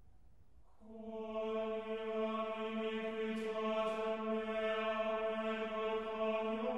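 Ambient background music: a steady, chant-like drone rich in overtones swells in about a second in, after the faint tail of a fading ring.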